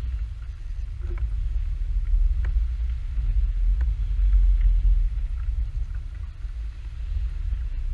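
Steady low rumble of wind buffeting the camera microphone, with a few faint ticks scattered through it.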